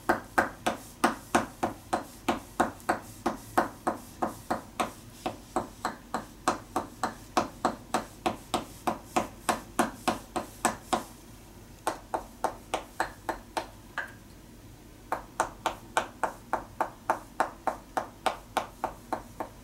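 Tok Sen therapy: a wooden mallet repeatedly strikes a wooden wedge held against the body, giving an even run of sharp wooden knocks at about three to four a second. The knocking stops briefly twice in the middle, then picks up again.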